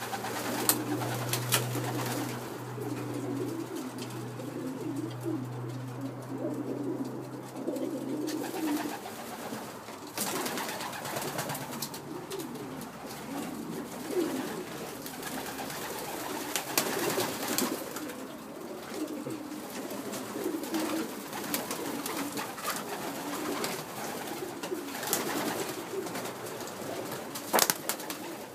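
Many racing pigeons cooing at once in a wooden loft, a continuous overlapping warble, with scattered sharp clicks. A low steady hum runs underneath for about the first nine seconds, then stops.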